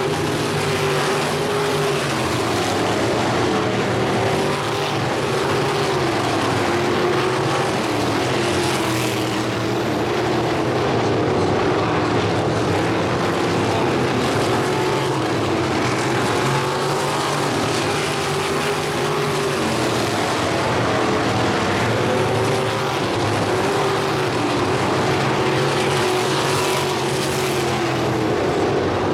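Several winged crate sprint car engines running together at racing speed, their pitch rising and falling as the cars go through the turns and down the straights.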